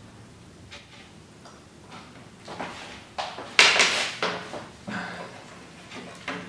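Handling clatter: a run of knocks and rattles, loudest a little past the middle, with a couple more near the end, as a soldering iron and a spool of solder are set down on a glass tabletop and loose wires are gathered up.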